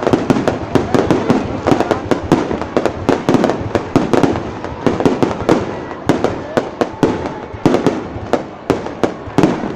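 Fireworks display going off: a dense run of sharp bangs and cracks, several a second and irregularly spaced, overlapping with no gap.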